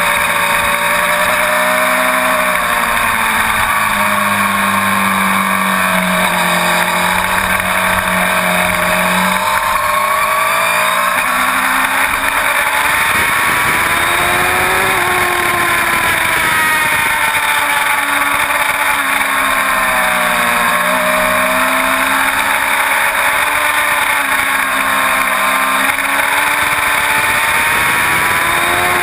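Inline-four sport motorcycle engine under way at speed, its revs rising and falling repeatedly through the bends, with heavy wind rush over the bike.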